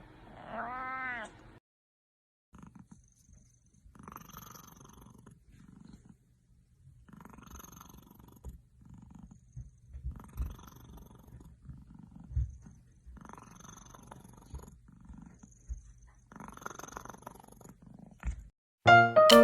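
A cat gives one short meow, then purrs softly in slow repeated swells, about one every second and a half. Piano music cuts in at the very end.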